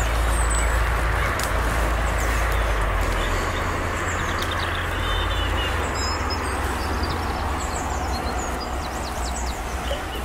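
Wind rumbling on the microphone over a steady outdoor hiss, with small birds chirping faintly here and there.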